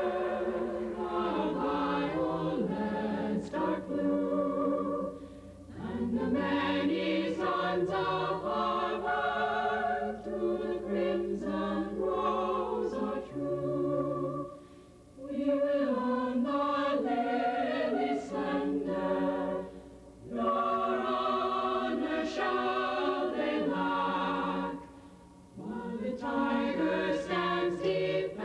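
Choir singing, several voices holding notes in harmony, with short breaks between phrases.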